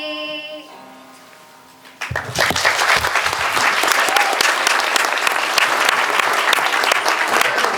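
The last sung note of the song fades out, and about two seconds in a school audience breaks into steady applause.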